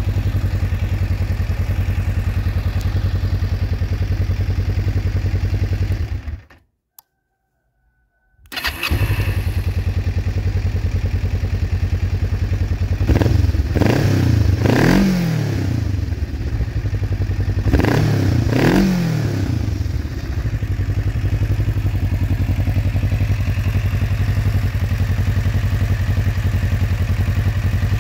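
Kawasaki EN500's parallel-twin engine idling steadily, revved up and down twice with the throttle midway. The sound cuts out for about two seconds, about six seconds in.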